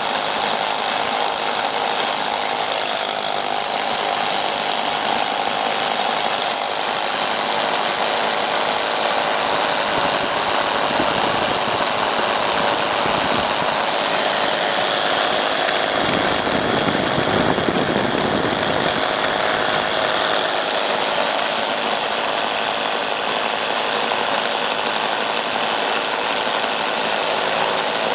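Electric drill running steadily with a wide hole-cutting bit boring through a thick wall, with a deeper rumble for a few seconds after the middle.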